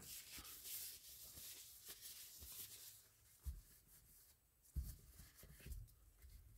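Faint rubbing of a paper towel wiping grease off a metal spinning-reel body, with a few soft knocks as the reel is handled on the towel.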